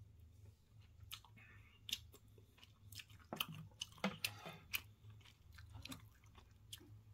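A person chewing a mouthful of cheese pork cutlet and curry rice close to the microphone. The chewing comes as irregular sharp clicks and short smacks, busiest around the middle.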